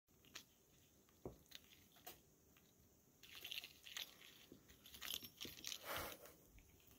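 Kitten biting and clawing at the end of a wand toy on carpet: faint scattered clicks, then a few seconds of scratchy rustling and crunching near the middle.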